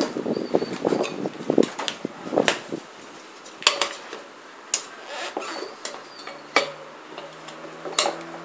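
Metal bead-breaker tyre levers clinking and knocking against metal: a spell of rattling, then about five sharp clinks a second or so apart, each with a short ring.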